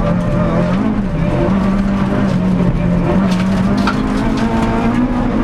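Renault Clio Sport rally car's engine heard from inside the cabin, running loud under way on a stage. Its pitch dips briefly about a second in, then climbs slowly, over steady road and tyre noise.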